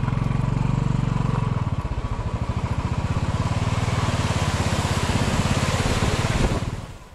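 Motorcycle engine running at low speed, with the rushing of water cascading over stone walls and across the road growing louder. Both cut off abruptly near the end.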